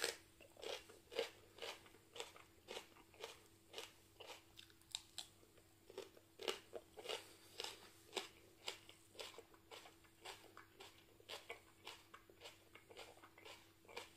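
A person biting into a piece of fresh hot pepper, a sharp bite right at the start, then chewing it steadily, about two chews a second.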